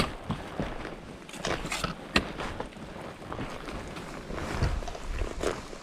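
Footsteps of hikers walking up a trail, a series of irregular scuffs and clicks over a low rumble.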